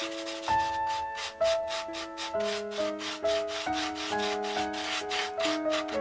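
A paintbrush scrubbing rapidly back and forth over a textured brick-patterned craft board, brushing on grey paint: a quick rasping rub, several strokes a second. Background music with sustained piano-like notes plays underneath.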